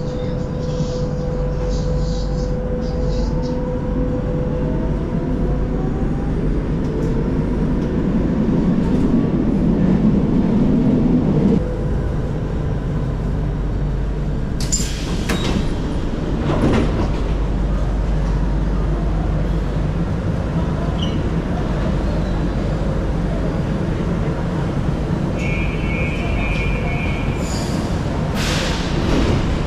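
Lisbon Metro train heard from inside the carriage: a steady rumble with a motor whine, growing louder until it drops off sharply about twelve seconds in as the train halts at the platform. Sharp clacks follow a few seconds later, and a short electronic beep sounds near the end.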